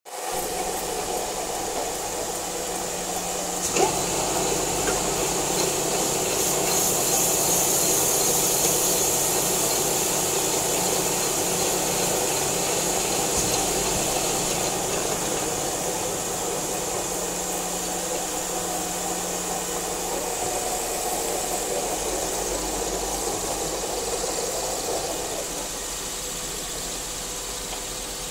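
Machine-shop noise: metalworking machinery, including a lathe cutting under coolant spray, running with a steady hum and hiss. One sharp knock comes about four seconds in.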